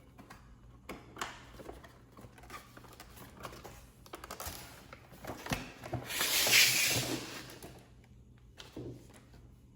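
A cardboard box being opened and handled by hand: scattered light taps and rubbing, with a louder scraping, tearing rustle from about six to seven and a half seconds in.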